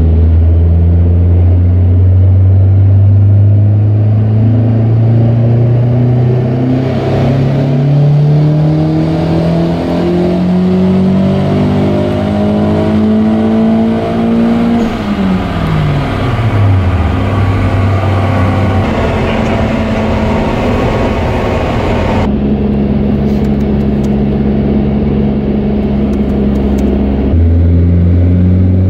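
Audi A4 quattro's 1.8-litre turbocharged four-cylinder engine making a pull on a chassis dynamometer. Engine speed climbs steadily for about fifteen seconds, then drops quickly as the throttle is lifted. It then runs at steady speeds, with a couple of abrupt changes in pitch.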